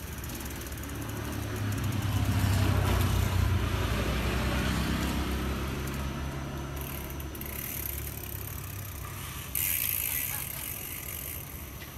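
A motor vehicle's engine passing by, a low hum that swells over the first few seconds and then slowly fades. A sudden short hiss comes in about nine and a half seconds in.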